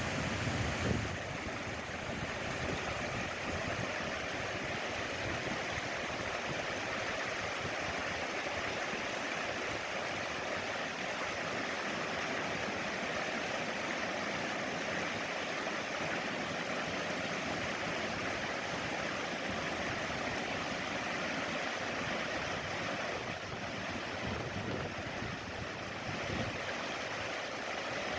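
Mountain valley stream flowing: a steady, even rush of water, with a brief low rumble in the first second.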